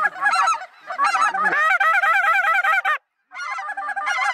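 A large flock of geese calling overhead, many honks overlapping in a dense chorus. The sound cuts out abruptly for a moment about three seconds in, then the calling resumes.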